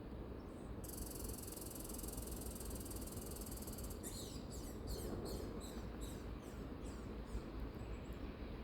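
Bird calls over a steady low rumble: a high, fast trill for about three seconds, then a run of about eight quick, falling chirps.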